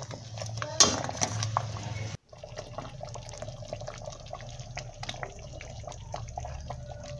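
Pork in green salsa boiling in a metal pot, a ladle stirring and clinking against the pot during the first two seconds. After a sudden break just past two seconds, steady bubbling with small pops.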